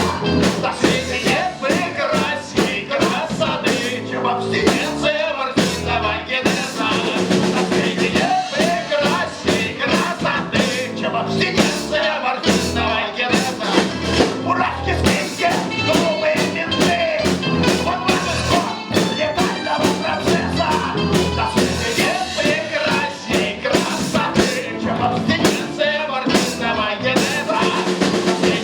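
Live rock band playing a blues-rock song with drum kit, bass guitar and keyboards, keeping a regular beat.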